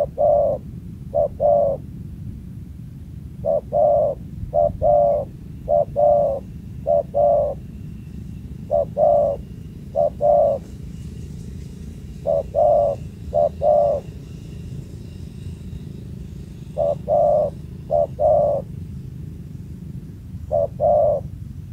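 Spotted dove (tekukur) cooing: short phrases of two to four coos, repeated every few seconds with pauses between them, over a steady low background rumble.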